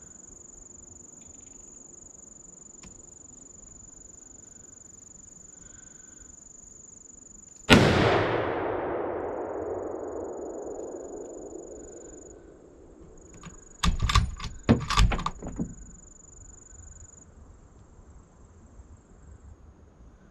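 A single gunshot from a deer hunt about eight seconds in, its report echoing and dying away slowly through the woods over several seconds. About six seconds later comes a quick cluster of sharp clicks and knocks, over a steady high-pitched insect drone.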